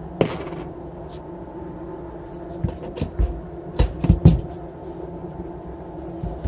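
Metal knocks and clinks as a brushless ebike motor's metal casing and small parts are handled and set down on a workbench: one sharp clink just after the start, then a cluster of knocks about three to four and a half seconds in, with a steady low hum underneath.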